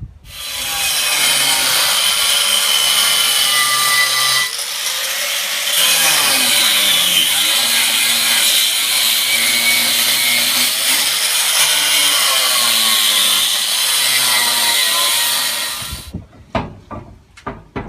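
Power saw cutting, loud and continuous for about sixteen seconds, its motor pitch dipping and recovering under load, with a short change about four and a half seconds in. It stops, and a few sharp knocks follow near the end.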